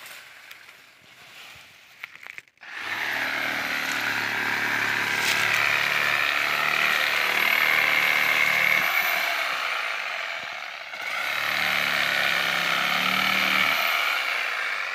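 Motorized power saw running hard as it cuts through dry date palm fronds, in two long runs with a short dip about eleven seconds in.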